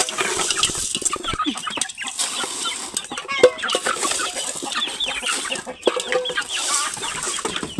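Flock of hens clucking and squawking busily as they crowd and jostle at a feed pan, with a few sharp knocks among the calls, the loudest about three and a half seconds in.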